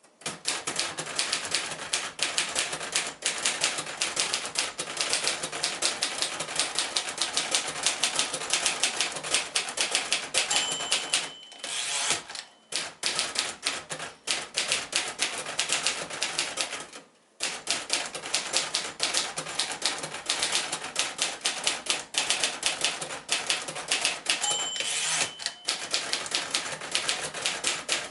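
Rapid keystrokes on a 1952 Royal Senior Companion manual portable typewriter, with type bars striking the platen several times a second and two short breaks. A short ring sounds twice, each time shortly before a break: the margin bell marking the end of a line before the carriage return.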